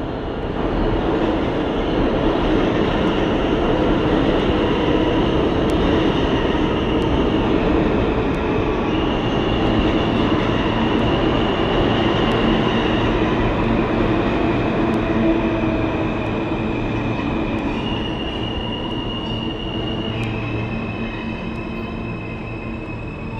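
New York City subway train running past on the far track of an underground station: a loud steady rumble that builds about a second in and eases toward the end, with a high wheel squeal that steps between a few pitches.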